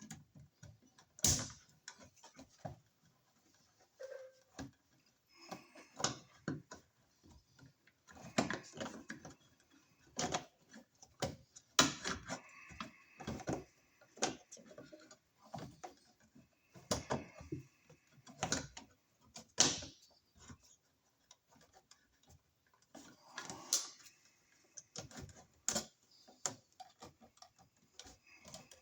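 Irregular clicks, taps and short scrapes of hand tools and small hard parts being handled, as in work on a wall receptacle.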